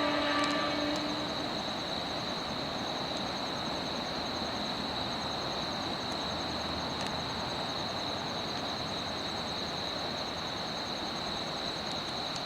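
Steady outdoor background noise with a continuous high-pitched insect trill and a faster ticking chirp above it. A short low tone fades out about a second in.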